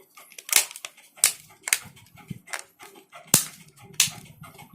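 Irregular sharp clicks and taps of plastic phone parts being handled and pressed into place as a Samsung B310E feature phone is reassembled, a few louder snaps among smaller ticks.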